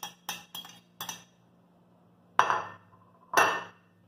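Kitchenware knocking: a plastic spatula tapping a few quick times against a plate and plastic mixing bowl while scraping grated cheese off the plate, then two louder clinks of dishes about a second apart.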